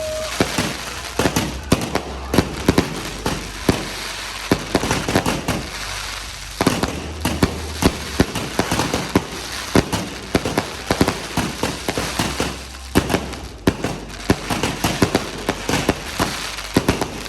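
Fireworks going off close by: a dense, continuous run of sharp bangs and crackling pops, several a second.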